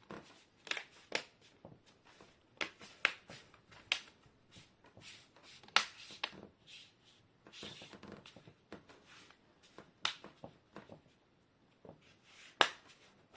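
Plastic laptop screen bezel pressed back on by hand, its clips clicking into place in sharp, irregular snaps.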